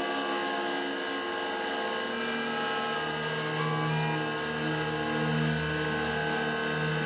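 Sieg X2 CNC mini mill's end mill cutting aluminium at speed: a steady whine and hiss of the spindle and cutter working through the block.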